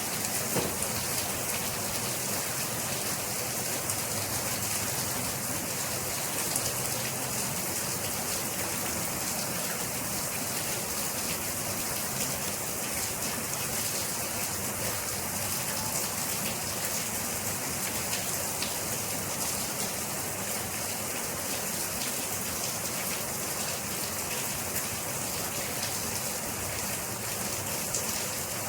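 Steady rain falling, a dense even hiss with scattered individual drop ticks.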